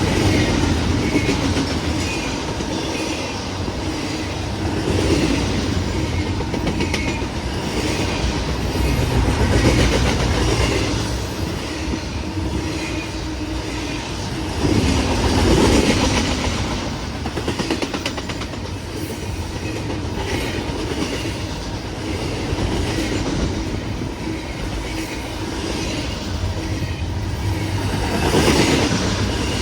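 Intermodal freight train's cars rolling past, steel wheels clacking in a steady rhythm over the rail joints under a continuous rumble that swells louder several times.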